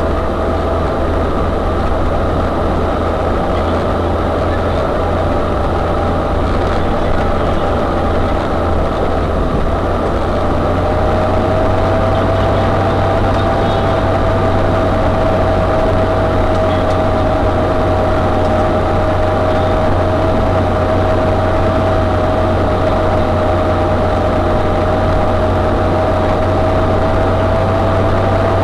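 UAZ-3909 'Bukhanka' 4x4 van driving, its engine and drivetrain running steadily under a low rumble, with a high whine that grows stronger about a third of the way in.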